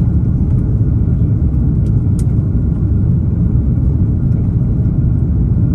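Steady low rumble of engine and airflow noise inside an Airbus A330-900neo's cabin during the approach with flaps extended. The engines are Rolls-Royce Trent 7000s. Two faint clicks come about two seconds in.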